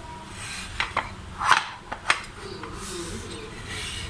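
A ceramic serving plate handled on a tabletop: four light knocks and clinks in the first two seconds, the third the loudest, then a soft scraping as the plate is slid across the table.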